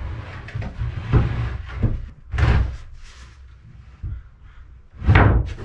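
Plywood floor panels being set down and shifted into place on the wooden framing, giving a series of dull wooden thumps and knocks, the loudest near the end.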